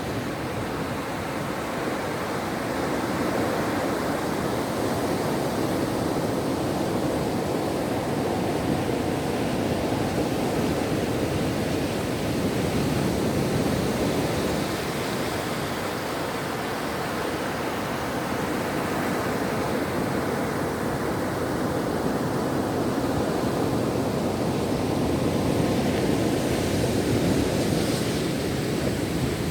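Ocean waves washing onto a shore: a continuous rushing noise that slowly swells and eases every several seconds.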